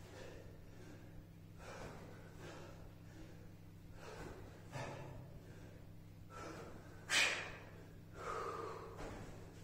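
A person breathing hard from exertion: short, forceful breaths about once a second, with one sharper, louder exhale about seven seconds in. A steady low hum runs underneath.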